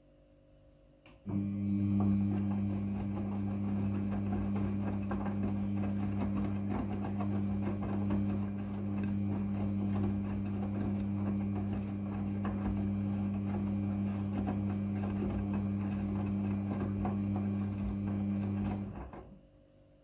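Midea front-loading washing machine's drum turning through a wash cycle: a steady motor hum with wet towels tumbling and water sloshing inside the drum. It starts about a second in and winds down about a second before the end.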